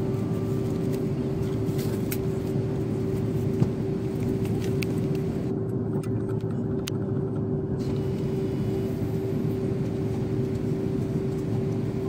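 Steady drone of an airliner cabin in flight: a low rush of engine and air noise with a constant hum, and a few faint clicks.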